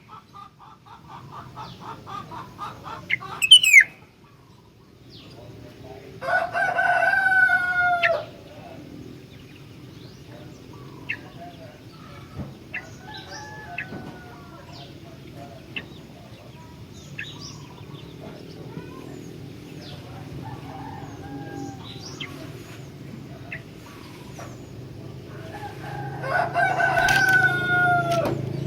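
Sooty-headed bulbul (kutilang) calling in short whistled notes, with scattered chirps, over a steady low hum. A rooster crows twice, about six seconds in and again near the end; these two crows are the loudest sounds.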